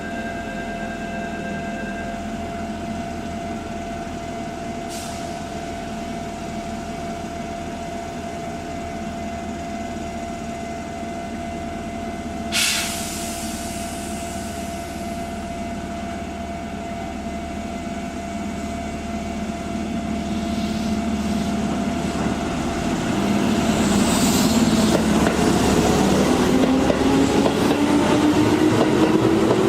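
Keihan electric train standing with a steady hum, then pulling away: its traction motors whine upward in pitch and the running noise grows louder as it accelerates over the last several seconds. A brief sharp burst of noise about twelve seconds in.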